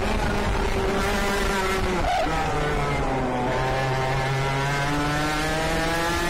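IAME KA100 kart's 100cc reed-valve two-stroke engine at racing revs: the pitch drops sharply about two seconds in, as when lifting off for a corner, then climbs steadily back up as the kart accelerates.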